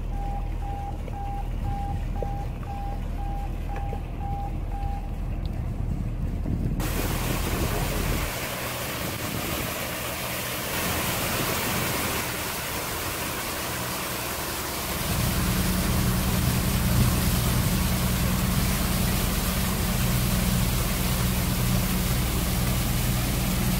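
Fire boat's engine running with a steady low hum, with a short run of evenly spaced beeps early on. About seven seconds in, a loud steady hiss of water starts as the boat's spray nozzles throw water in several directions around the hull and cabin, and about fifteen seconds in the engine note grows louder and steadier.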